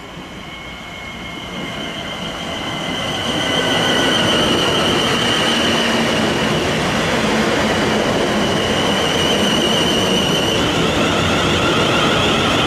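South Western Railway Class 450 Desiro electric multiple unit running along the platform, growing louder over the first few seconds and then steady, with a rumble from its wheels and carriages. A high electric whine glides slowly down in pitch and turns wavering near the end.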